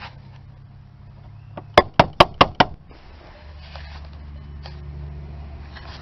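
About six sharp knocks in quick succession, the loudest sounds here. About three and a half seconds in, a steady low hum sets in.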